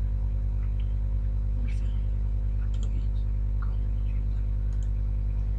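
Steady electrical mains hum on the recording, with a few faint clicks that fit a computer mouse being clicked.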